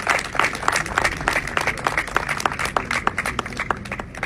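Audience applauding with many hands clapping, the claps thinning out and stopping near the end.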